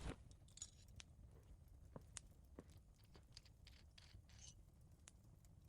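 Faint crackling of a wood fire in a fireplace: scattered, irregular small pops and snaps over a low rumble.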